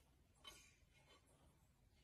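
Near silence: faint room tone, with one faint tap about half a second in.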